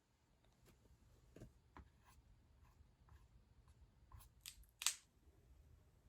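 Near silence with faint, scattered small clicks and rustles, and one sharper click about five seconds in.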